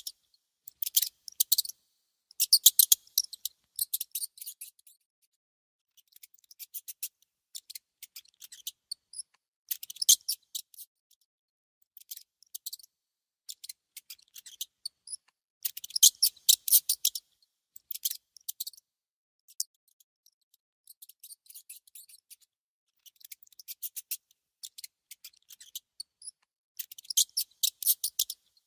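Mouse gnawing and nibbling at food: quick runs of dry, high clicks, each run lasting about a second, broken by short pauses.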